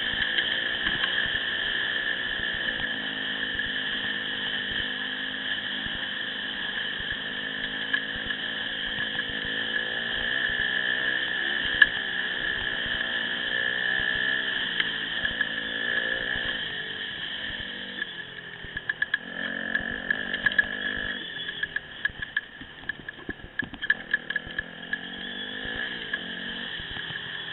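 Dirt bike engine running while riding a rough forest track, its revs rising and falling, with a steady high-pitched whine over it. About two-thirds of the way through the engine drops quieter and uneven, with many sharp knocks and rattles over the bumps.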